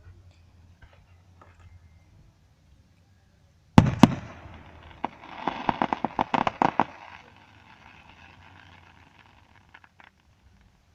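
Fireworks going off: two sharp bangs about four seconds in, followed by a crackling run of rapid pops that dies away after about three seconds.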